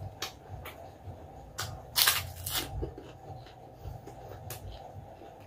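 A person chewing crispy pork chicharon close to the microphone: scattered crunches and mouth clicks, the loudest crunching about two seconds in.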